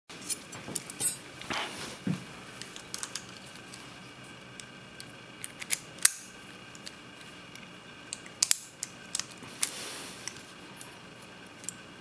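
Sharp metallic clicks, snaps and scrapes from a small brass wafer-tumbler padlock being handled and worked with picking tools. The loudest snap comes about six seconds in, with a quick cluster of clicks near eight and a half seconds.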